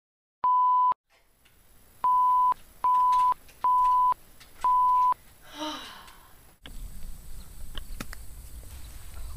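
A series of five identical electronic beeps, each a steady single-pitched tone about half a second long, at uneven intervals. Then a brief sound falling in pitch, and from about two-thirds of the way in a steady low outdoor rumble with a few clicks.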